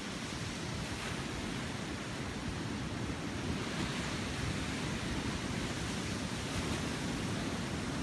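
Small sea waves breaking and washing up a beach, a steady surf hiss that swells a little in the middle.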